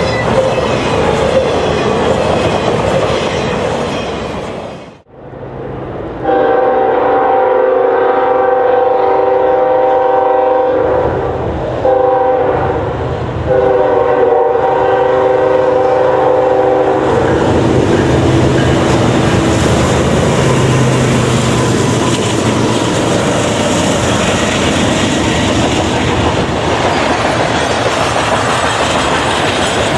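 Diesel freight locomotive's multi-note air horn blown in a long blast, a short one and another long one. The horn is followed by the steady running of the diesel locomotives and the train rolling by, wheels clattering on the rails. Before the horn there is train noise that cuts out briefly.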